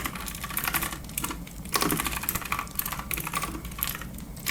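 Clicky computer keyboard being typed on in quick runs of keystrokes, with short pauses between the runs.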